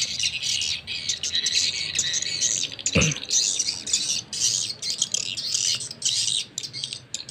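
A recorded swiftlet lure call (suara panggil walet) plays through a pair of small horn tweeters from a dual USB MP3 player. It is a dense, continuous stream of high twittering chirps, with a single knock about three seconds in.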